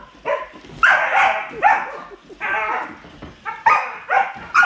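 Puppy yipping and barking repeatedly in short, high calls while playing.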